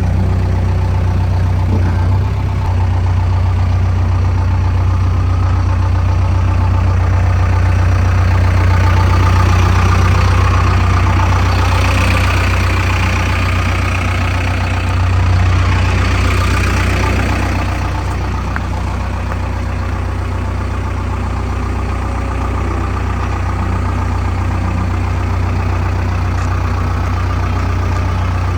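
Heavy diesel engine running, mostly at idle, with a louder, busier stretch from about 9 to 17 seconds in before it settles back to a steady idle.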